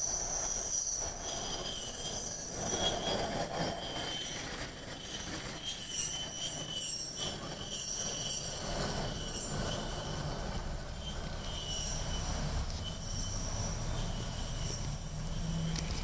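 Steel wheels of a maintenance-of-way move squealing on the rails as it rolls past: several high-pitched squeal tones that waver and overlap. A low rumble of the moving equipment grows in the second half.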